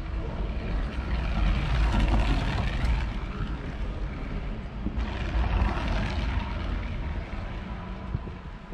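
Track bicycle riding past on the wooden velodrome boards: a rushing whir of the wheels and tyres that swells as it goes by, with a second swell a few seconds later.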